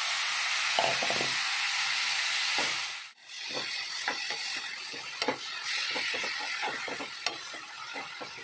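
Crushed tomatoes sizzling loudly as they hit hot oil and fried onions in a frying pan. After about three seconds the sizzle eases, and a steel ladle scrapes and taps against the pan again and again as the mixture is stirred.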